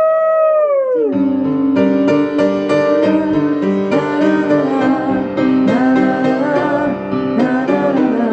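A singer's long held note, wavering in pitch, glides down and ends about a second in; then an instrumental passage follows, led by piano or keyboard.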